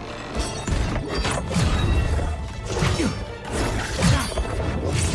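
Dramatic film score over a fight, with a string of crashing, smashing impacts about once a second.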